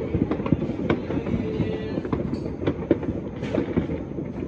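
Distant fireworks and firecrackers going off all over a city at once: countless overlapping bangs and pops merge into a continuous crackling rumble, with a few louder single bangs standing out.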